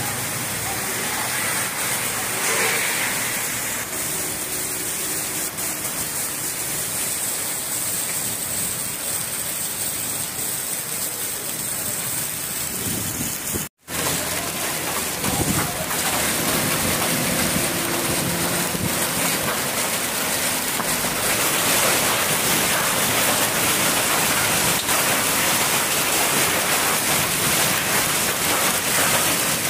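Heavy rain pouring onto a flooded road and parked vehicles, a steady hiss. It breaks off for an instant about fourteen seconds in, then carries on slightly louder.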